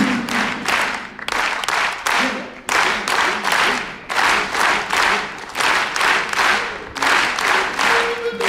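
Audience clapping in unison in time with the tune, a steady beat of about two claps a second, with a few faint acoustic guitar notes underneath.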